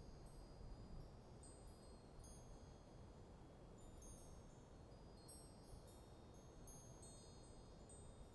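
Faint wind chimes tinkling irregularly in a light breeze, clusters of high ringing notes that each hang briefly, over a soft low hush of wind.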